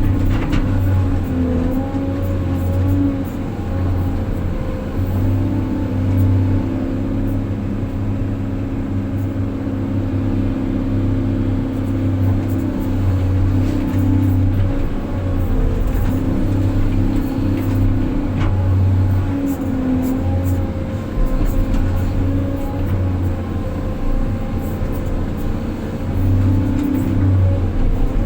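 Heavy earthmoving machinery's diesel engine running steadily, its note swelling and easing every few seconds as the load changes, with a few faint knocks.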